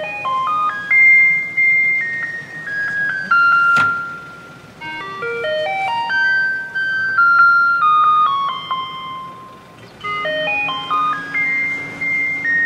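Garbage truck's loudspeaker playing its electronic jingle, the tune Taiwanese garbage trucks play to tell residents to bring out their rubbish. Each phrase climbs in quick single notes to a held high note and then steps back down, repeating about every five seconds, with a sharp click about four seconds in.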